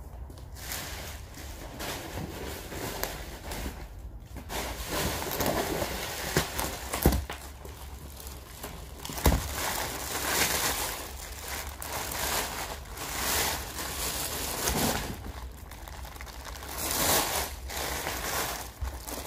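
Thin plastic bag rustling and crinkling in irregular bursts as it is handled and pulled back from a frozen cow's head, with two sharp knocks in the middle.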